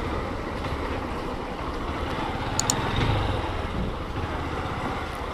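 Honda CG 160's single-cylinder four-stroke engine running at low revs as the motorcycle rolls slowly, with two quick clicks about halfway through.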